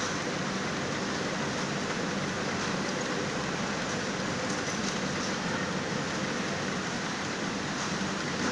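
Yarn winding machine running steadily, its drums turning as it winds off the yarn of defective knitted sweater fabric, within a continuous factory machine noise.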